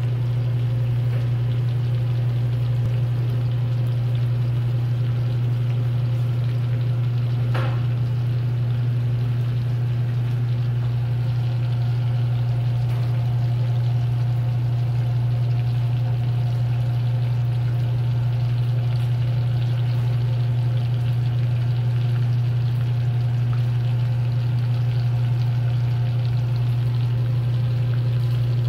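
Breaded patties shallow-frying in oil in a stainless steel pan, a steady sizzle and bubbling, under a loud steady low hum. One brief sharp sound about seven and a half seconds in.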